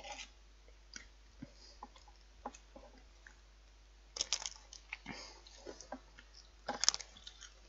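Someone biting and chewing a Pringles Rice Fusion stacked crisp: quiet crunching, with bursts of sharp crunches about four seconds in and again near the end.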